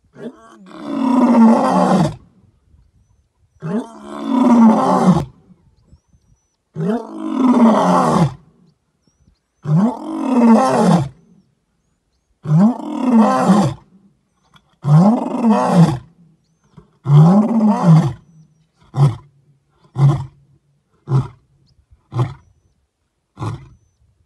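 Male lion roaring: seven long roars of about a second and a half each, every one rising and then falling in pitch, followed by five short grunts about a second apart as the bout tails off.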